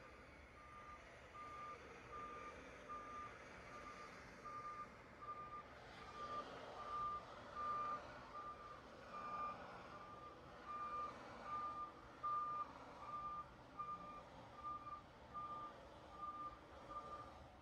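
A vehicle backup alarm beeping steadily, about two beeps a second, over engine noise of vehicles moving in the yard that swells and fades.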